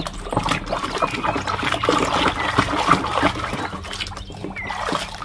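Wet squelching and trickling water as thick mud is rubbed and washed off a toy by hand, with many small crackling clicks.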